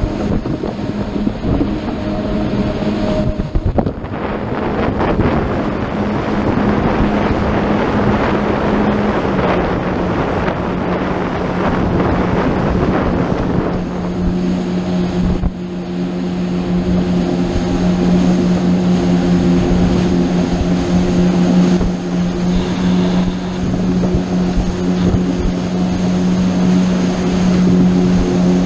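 Motorboat engine running steadily underway, its hum dropping slightly in pitch about nine seconds in, over the rush of wind and water.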